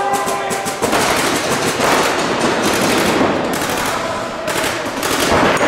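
Paintball markers firing rapid strings of shots in a steady, overlapping stream, echoing in a large indoor arena.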